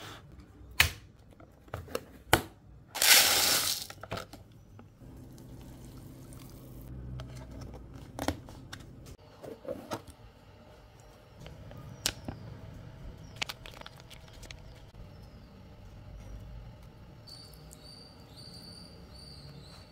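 Plastic lid of an instant biryani cup clicking and snapping as it is opened, with a loud tearing rustle about three seconds in as the seal is peeled back. Scattered clicks and taps of the plastic cup and lid being handled follow.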